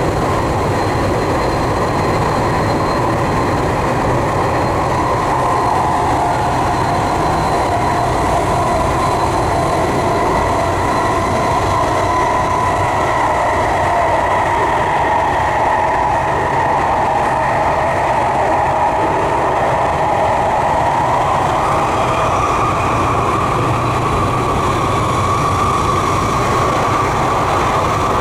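Tokyu 3020 series electric train running: steady wheel-on-rail running noise with a whining tone that shifts in pitch and rises about two-thirds of the way through.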